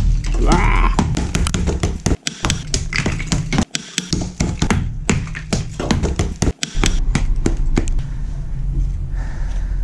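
Hammer blows on a block of ice, struck rapidly over and over to crack it open and free a frozen football boot, with ice chips clattering onto wooden deck tiles. The blows stop near the end.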